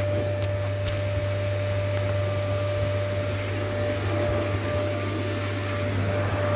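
Vacuum cleaner motor running steadily, a constant hum with a steady whine over a rushing of air; two faint clicks about half a second and a second in.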